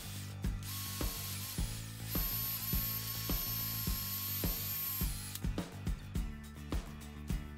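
Cordless drill boring into a small wooden block: a short burst about a second in, then a longer run of about three seconds, each with a steady high whine. Background music with a steady beat plays throughout.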